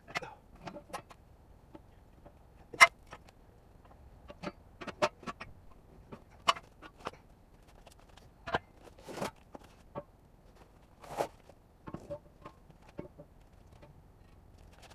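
Irregular knocks and clicks of hardware and packaging being handled, the loudest about three seconds in.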